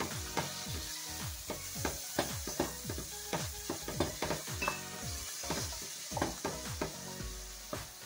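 A wooden spoon stirring chopped onion, garlic and herbs through olive oil in an aluminum pot, knocking and scraping against the pot a couple of times a second, over a light sizzle of the sofrito frying.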